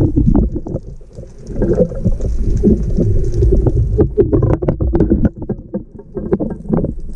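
Muffled underwater noise from a speargun-mounted camera housing, with many short knocks and scrapes as the gun is handled and the camera rubs against the diver's neoprene wetsuit, thickest in the second half.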